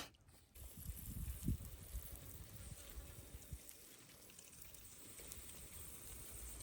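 Faint outdoor background: a low rumble with a few soft thumps in the first two seconds, over a faint steady high hiss.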